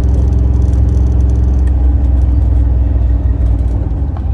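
A 1968 Chevrolet Camaro's engine running through its chambered exhaust under way, a steady note that drops away about two seconds in, as if the throttle is eased off.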